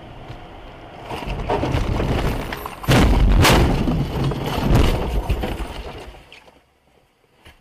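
A car crash: a rising rush of noise, then a loud impact about three seconds in, followed by more crunching, breaking blows over the next two seconds, before the sound dies away.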